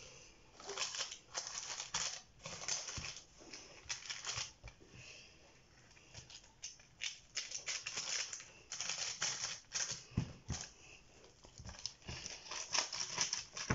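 Hands pressing and patting soft dough along the edges of a parchment-lined baking tray: a run of short, soft rustling strokes of skin on dough and paper, easing off briefly in the middle.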